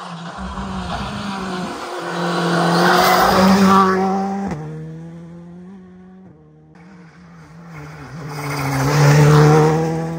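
Rally car engines driven hard past the microphone, twice: the first pass swells to a peak about three seconds in and breaks off suddenly, and a second pass builds to a peak near the end.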